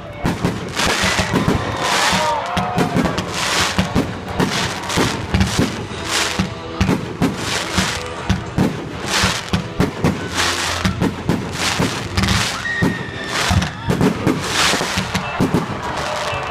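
Fireworks going off in quick succession, a string of sharp bangs about every half second to a second, over music and voices.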